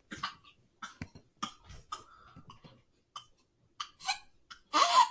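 A toddler coughing in a scatter of short, quiet little coughs and breaths, then a louder pitched vocal sound near the end.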